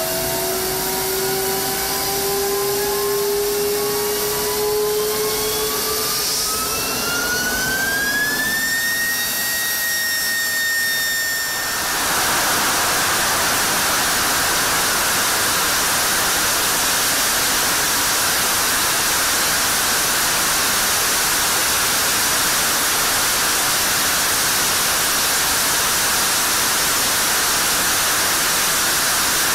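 F-16 afterburning turbofan jet engine on a test stand, spooling up with a rising whine that levels off. About twelve seconds in, the afterburner lights and a loud, steady rushing roar takes over, held at full afterburner.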